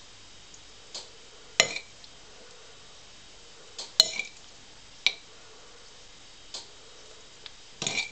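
Metal spoon clinking and scraping against a ceramic bowl while a wet food mixture is scooped out and packed into a rubber Kong toy: a string of separate clinks and taps, the sharpest about a second and a half in and at four seconds, with a small cluster near the end.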